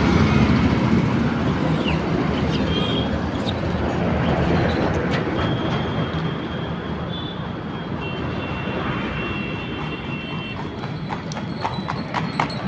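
Steady street noise, a low rumble like road traffic, with a faint high steady tone for a few seconds in the middle. Near the end a run of sharp clicks sets in.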